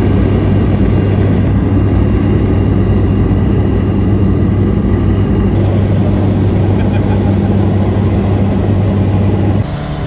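Floatplane engine and propeller droning steadily, heard from inside the cabin. Near the end it cuts off abruptly and gives way to a quieter sound.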